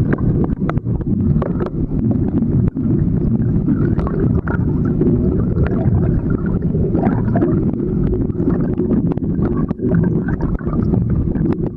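Steady, muffled rumble of churning water below a waterfall, picked up underwater, with faint scattered clicks.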